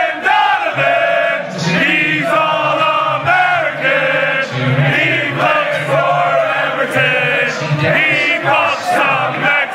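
A crowd of US soccer supporters chanting together in unison, a loud, rhythmic group chant.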